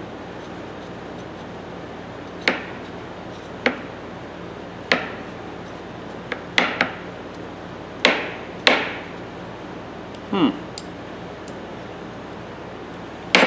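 Sharp metal clicks and clacks from a Winter No. 3 steel tap handle being turned and worked by hand, its freshly greased threads starting to bind. About eight clicks come at uneven intervals.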